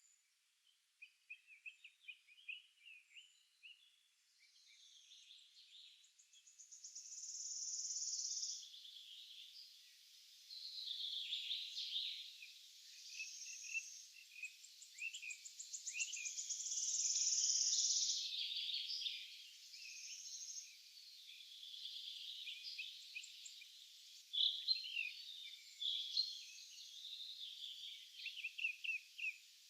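Several small songbirds singing and chirping in a forest morning chorus: many short overlapping chirps and trills, with two longer, higher-pitched phrases, a quarter of the way in and just past halfway, that are the loudest.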